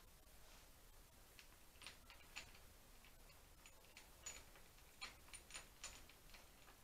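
Faint, scattered small clicks and ticks of an Allen key working the bolts of a motorcycle's handlebar throttle housing as the housing is undone.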